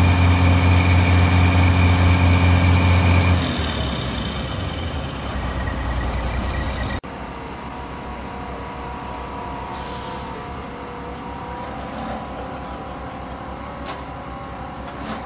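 Heavy diesel truck engines running steadily: a loud, even drone that eases after about three and a half seconds, then changes abruptly to a quieter hum about seven seconds in, with a brief hiss a few seconds later.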